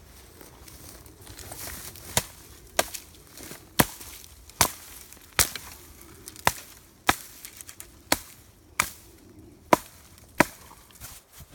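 Wood being chopped: about a dozen sharp, evenly paced strikes, roughly one every three-quarters of a second, starting about two seconds in.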